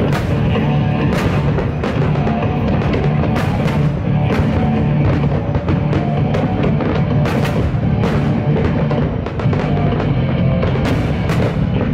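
Loud music from the fireworks show's soundtrack with heavy drums, broken by many sharp, irregularly spaced bangs from firework shells bursting.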